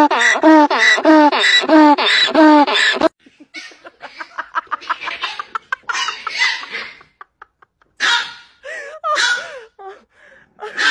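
A donkey braying loudly, a rapid repeated hee-haw that cuts off suddenly about three seconds in. Softer, scattered short sounds follow.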